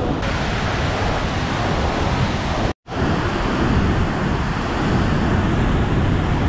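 Steady rush of Vernal Fall's water pouring and splashing down over granite boulders, heard close up in its spray. The sound cuts out for a moment about three seconds in.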